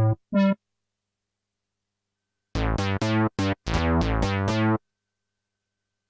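Steinberg Prologue software synthesizer playing bass presets: one short note just after the start, about two seconds of silence, then a quick run of short, plucky bass notes from about two and a half seconds in to nearly five seconds. Each note starts bright and quickly turns duller.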